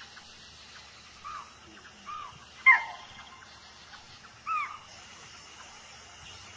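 An animal calling four times in short arched notes, each rising and falling. The loudest call comes about two and a half seconds in, over a faint steady hiss of night ambience.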